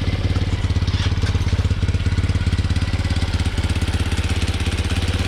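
TaoTao Hellcat 125cc single-cylinder four-stroke motorcycle engine idling steadily with an even, rapid exhaust pulse, just started on fresh 10W-40 oil to check that it runs right after an oil change.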